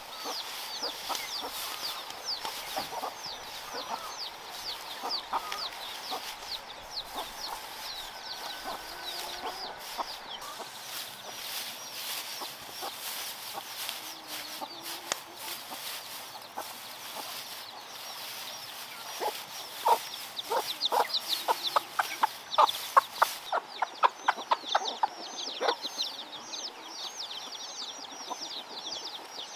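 Chickens clucking and peeping: rapid high falling peeps run throughout, and a burst of loud, quick clucks comes about two-thirds of the way through.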